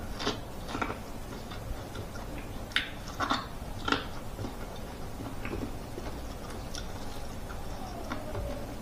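Close-up eating sounds: crisp crunching bites into corn on the cob, loudest in the first four seconds, then quieter chewing with soft wet mouth clicks.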